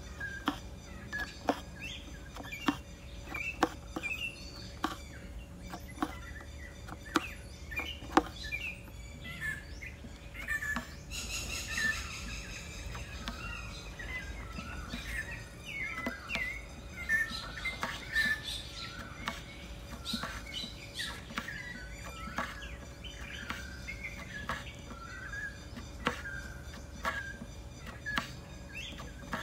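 Needle punching through taut canvas in an embroidery hoop, giving irregular sharp clicks about one or two a second as thread is drawn through. Short bird chirps run behind it.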